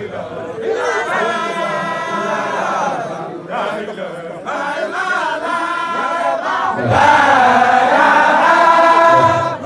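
A crowd of men chanting a Sufi zikr in unison, in long, drawn-out lines. The chanting grows louder about seven seconds in.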